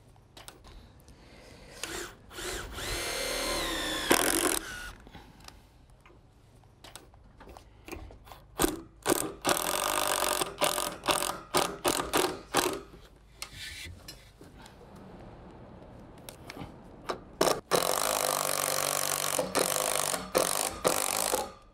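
Cordless drill boring a pilot hole through an L-bracket into wooden deck boards, its whine rising in pitch as it spins up. Then it drives screws through the bracket in several bursts of rapid clicking and whirring.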